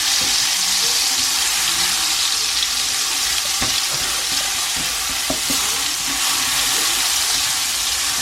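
Garlic frying in a pan: a steady sizzling hiss, with a few light knocks of a utensil against the pan as it is stirred.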